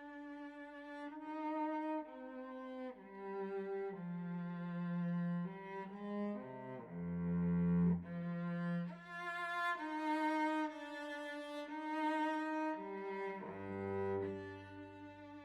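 Instrumental music: a slow melody of long held notes over low bass notes.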